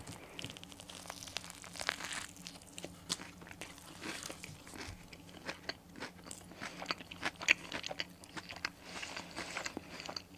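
Biting into and chewing a Burger King Crunchy Pepper Chicken burger, its breaded fried chicken patty giving many irregular crisp crunches throughout.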